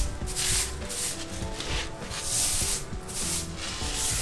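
Stiff stick broom sweeping a cement floor, brisk scratchy strokes about two a second as it pushes dry leaves and grit along.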